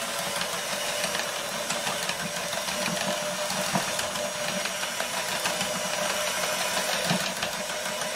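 Electric hand mixer running steadily at an even speed, its twin beaters whisking Yorkshire pudding batter in a bowl.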